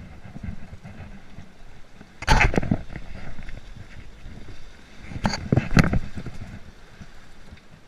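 Sea water surging and splashing against shoreline rocks twice, about two seconds in and again about five seconds in, over a steady low rumble of wind on the microphone.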